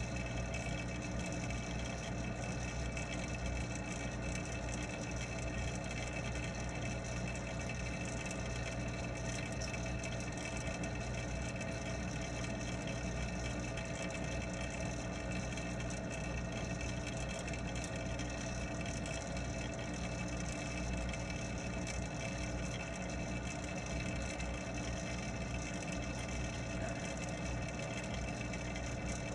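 Steady hum of a pond water pump and filter with running water, heard underwater, with several fixed tones over an even wash of noise.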